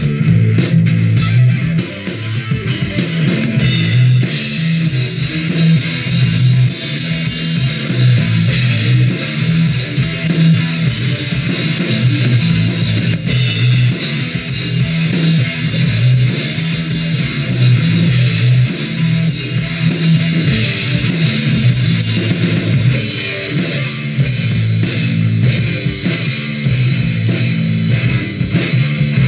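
A rock band jamming: guitar, bass guitar and drum kit playing a loud, repeating riff.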